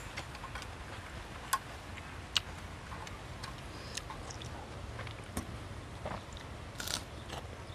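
Eating sounds at a tabletop grill: scattered soft, irregular clicks and ticks, with two sharper clicks about a second and a half and two and a half seconds in, over a low steady hum.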